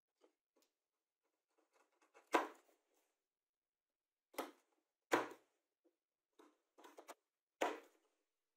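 Wood chisel pushed by hand into plywood, paring a round hole out into a hexagonal recess: a series of short crunching cuts with pauses between, starting about two seconds in.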